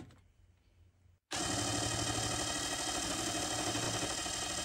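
Ryobi ONE+ HP 18V brushless impact wrench running free on its low speed setting, spinning a tachometer test rig. A steady motor and gear whine that starts suddenly about a second in and holds an even pitch.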